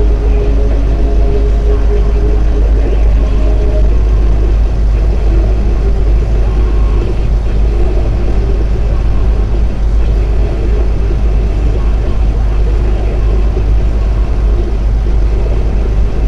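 Semi truck's diesel engine and tyres droning steadily inside the cab at highway cruising speed: a loud, even low rumble with engine tones layered over it.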